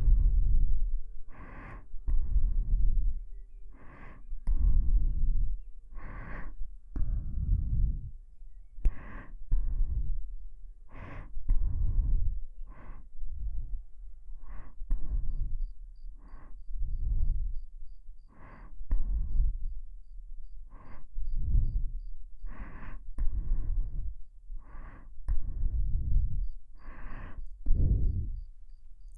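Close breathing right at a KU100 binaural dummy-head microphone: about one breath a second, each a short sharp sound followed by a longer exhale that blows onto the mic.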